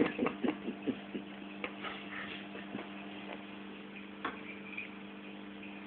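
Scattered light clicks of cutlery against a plate, irregularly spaced and a little denser in the first second, over a steady low hum.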